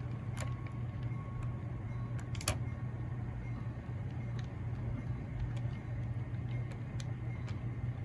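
HO scale model train running on the layout: a steady low hum with scattered light clicks, the strongest about two and a half seconds in.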